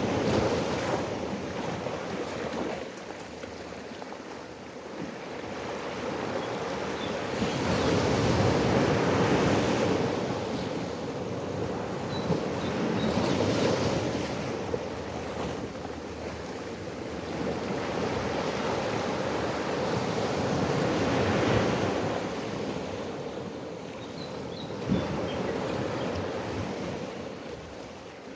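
Ocean waves breaking and washing up on the shore, the surf swelling and fading in slow surges every several seconds. A few faint high bird chirps come through over it.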